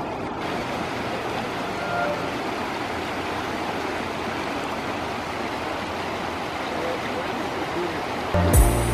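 River water running steadily over shallow, stony rapids, a constant rushing hiss. A few faint notes of background music linger in the first two seconds, and music comes back in loudly near the end.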